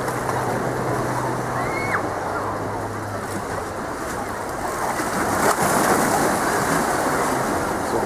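Sea waves washing and splashing against the boulders of a stone breakwater: a steady rushing noise that swells a little in the second half.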